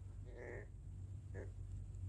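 Caged ringneck dove (puter pelung) giving two faint, short soft notes between its coos, about half a second in and again near the middle, over a steady low hum.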